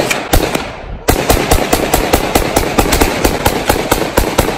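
Gunshots fired in quick succession: two shots, then from about a second in a fast, even string of roughly six shots a second.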